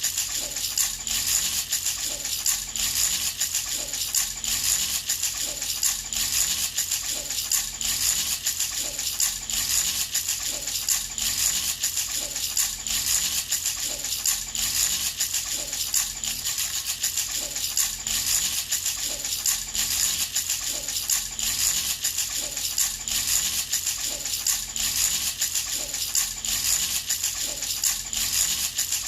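Baby rattle shaken steadily and rhythmically by hand, its small beads or pellets clattering in a continuous high, crisp rattle.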